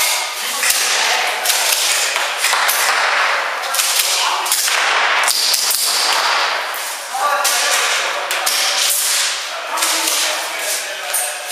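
Airsoft guns firing in rapid, irregular shots that come close together and run on without a break, with voices shouting now and then.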